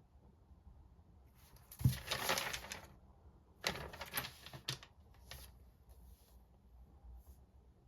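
Note-taking at a desk: a low thump about two seconds in, then two short spells of scratchy pen-and-paper rustling with sharp clicks, and a few fainter scratches near the end.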